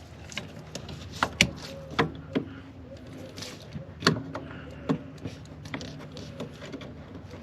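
Sharp plastic clicks and knocks, about half a dozen spread over several seconds, from a new brake light switch being fitted at the brake pedal bracket.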